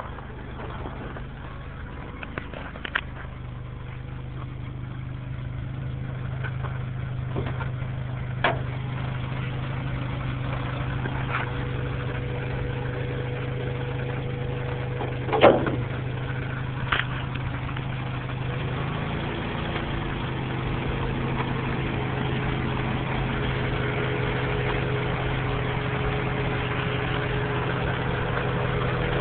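Acura B18 four-cylinder engine running at a steady idle with a metallic grinding noise from a failing water pump bearing. The sound grows gradually louder, with a few short sharp clicks, the loudest about halfway through.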